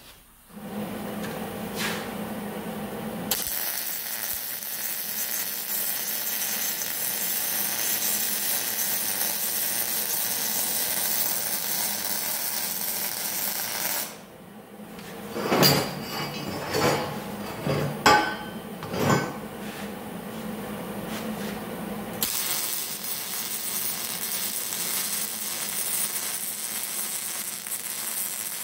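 MIG welder arc crackling and hissing steadily as a bead is run along a steel pipe joint, starting a few seconds in. It stops about halfway, a few loud knocks follow, and the welding resumes for the last third.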